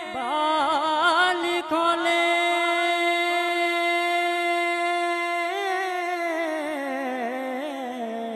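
A man's solo voice singing a Punjabi naat. A quick ornamented run in the first two seconds leads into one long held note that slides slowly downward over the last few seconds.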